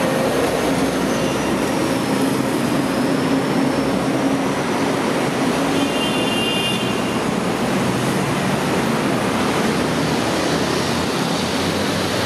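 Steady noise of heavy city road traffic, with an engine hum in the first few seconds and a brief high-pitched squeal about six seconds in.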